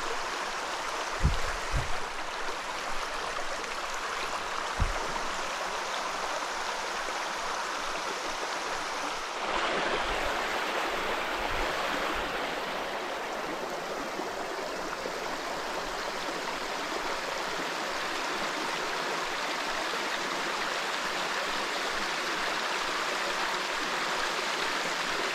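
Mountain stream running over rocks, a steady rushing of water. It gets a little louder about nine and a half seconds in. A few dull low bumps come in the first five seconds.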